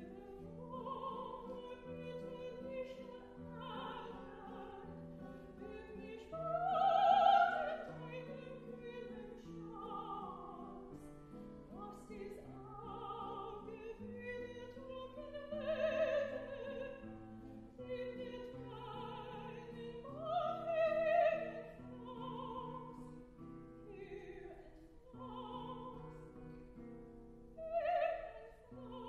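Classically trained voice singing an art song with wide vibrato, phrase after phrase, over a plucked classical guitar accompaniment, the loudest notes about a quarter of the way in, near the middle and near the end.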